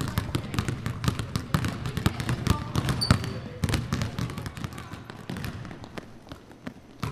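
Many basketballs dribbled at once on a hardwood gym floor, their bounces overlapping in an irregular rapid patter that thins out and grows quieter after about four seconds.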